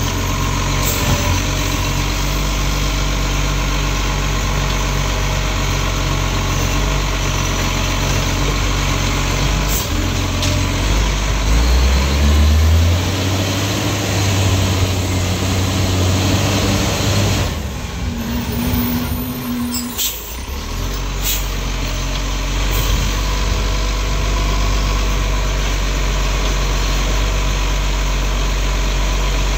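Iveco side-loader garbage truck's diesel engine idling, then revving up about a third of the way in as the truck pulls forward to the next bins. About two-thirds through it slows and stops with a short hiss from the air brakes, then settles back to a steady idle.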